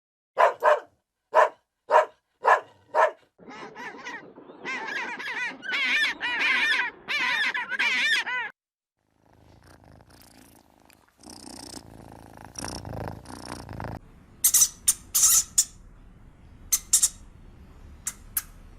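Farm animals calling one after another: five short sharp calls, then several seconds of wavering cries, then a quieter stretch of rustling broken by quick high chirps.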